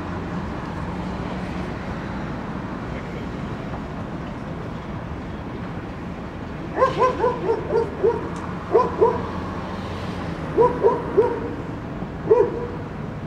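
A dog barking in short yaps, coming in four quick runs from about halfway through, over a steady low rumble.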